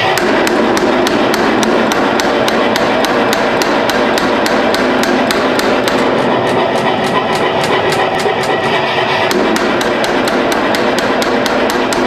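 Power hammer pounding steel in a fast, even rhythm of about four to five blows a second over a steady machine noise.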